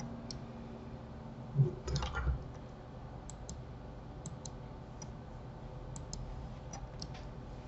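Computer mouse button clicks, single and in quick pairs, over a low steady hum, with a few dull low thumps about two seconds in.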